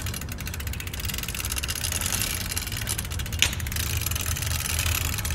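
A recorded bike sound effect playing back: a steady running noise with rapid, even ticking. A single sharp click a little past the middle is a stray click in the recording.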